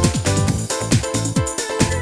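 Electronic background music with a fast, steady beat of short bass notes that drop in pitch.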